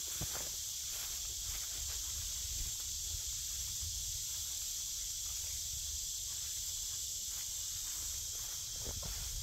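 Soft rustling of cut grass as it is spread and patted down by gloved hands into a bed, over a steady high-pitched hiss in the background.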